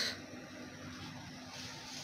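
Faint steady whir of a running desktop computer, its CPU cooler fan spinning, with a low steady hum.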